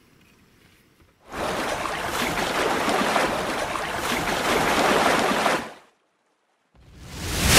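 Splashing, rushing water sound effect: a loud rush that lasts about four seconds and stops abruptly. After a second of silence, a second rush of water noise swells up near the end.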